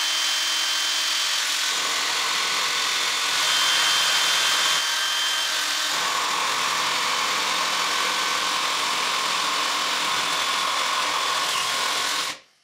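Cordless drill driving a 30 mm carbide-tipped hole saw through a flap disc into a wooden block beneath it. The steady cutting noise carries a faint whine and stops shortly before the end.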